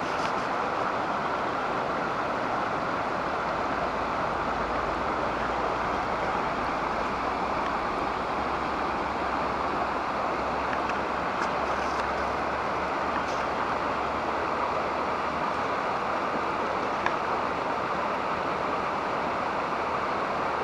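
Shallow stream babbling steadily, an even rush of running water.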